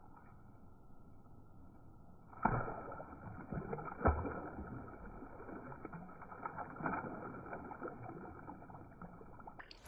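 Muffled creek water sloshing and splashing with scattered knocks, the strongest about two and four seconds in. It starts faint and gets louder about two seconds in.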